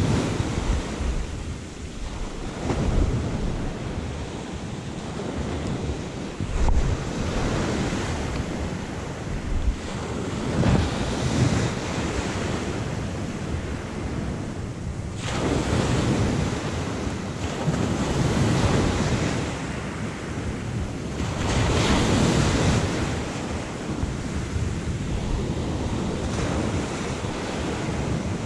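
Sea surf washing in, with wind gusting on the microphone; the noise swells and eases every few seconds.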